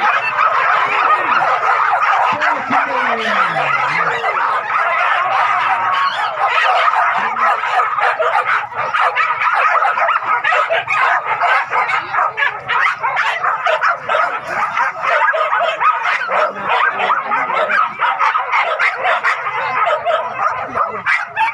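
Many hunting dogs yelping and barking at once in a dense, continuous chorus of overlapping high yips.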